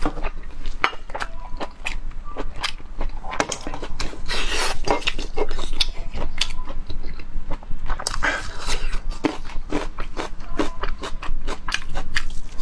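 Close-miked eating of braised pork: a steady run of irregular wet smacks, clicks and chewing noises from the mouth and lips.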